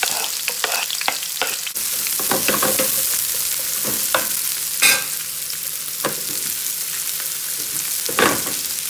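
Sliced onions sizzling in hot olive oil in a frying pan, the sizzle growing louder about two seconds in. A wooden spatula scrapes and knocks against the pan now and then as the onions are stirred.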